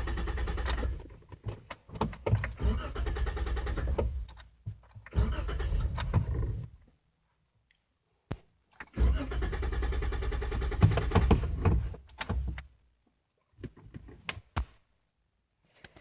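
2014 Jeep Wrangler being cranked in several tries, each lasting one to three seconds with pauses between, without the engine catching: a no-start.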